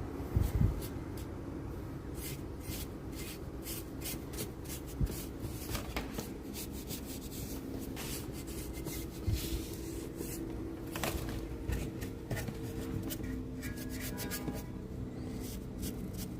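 Handling noise: hands rubbing and moving things about, with many scattered clicks and knocks over a faint steady hum.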